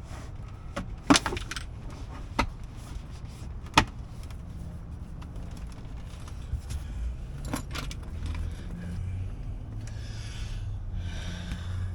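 Hard plastic knocks and clicks of a Tesla Model 3 center console being worked into place, with four sharp knocks spread through the first eight seconds and lighter handling and rustling noise between them.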